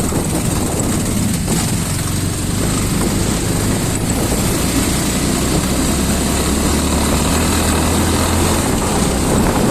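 Motorcycle engine running steadily under way on a rough hill road, with road and wind noise.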